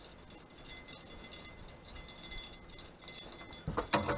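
Fishing reel drag clicking and buzzing in uneven high-pitched bursts as a big catfish pulls out line against it, with a short louder knock near the end.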